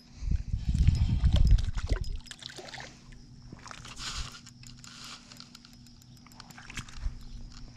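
A hooked trout splashing and sloshing at the water's surface close to the bank, with scattered small clicks and a louder splash about four seconds in. A low rumble fills the first two seconds.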